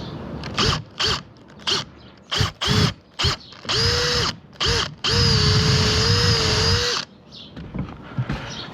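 Electric drill running in a string of short bursts, then in longer runs, the longest about two seconds, as it bores a hole. The bit is drilling the hole out too big.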